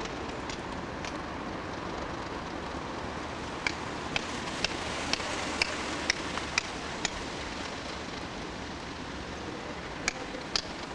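Steady rumbling noise of Class 37 diesel locomotives running at a distance while they shunt. About four seconds in comes a run of sharp clicks, roughly two a second, and two more near the end.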